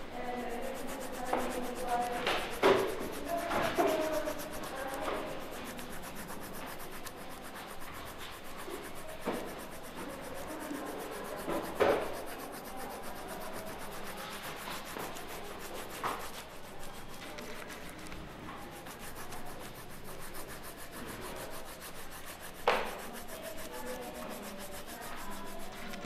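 Steady rubbing and brushing noise, with a few sharp knocks: one about 3 seconds in, one about 12 seconds in and one about 23 seconds in.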